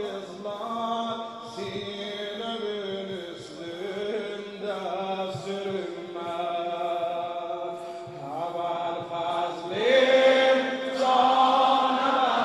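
A man chanting a Shia mourning elegy (mersiye) into a microphone, in long held, wavering notes that glide between pitches. About eight seconds in the voice rises in pitch and gets louder.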